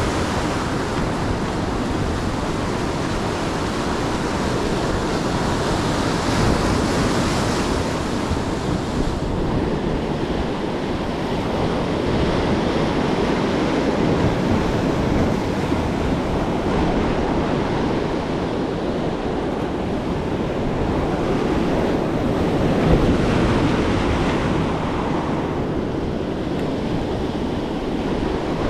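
Ocean surf breaking and washing up the beach, swelling and easing as the waves come in, with wind buffeting the microphone.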